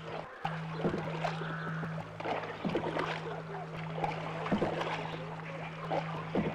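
Wooden paddles dipping and splashing in calm lake water in irregular strokes, over a steady low hum.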